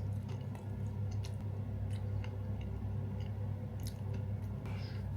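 A person chewing a mouthful of dense, heavy cake, with small scattered clicks and squishes, over a steady low hum.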